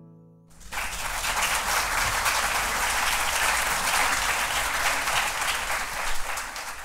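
The last chord of a classical guitar rings and dies away, and about half a second in an audience starts applauding, clapping steadily to the end.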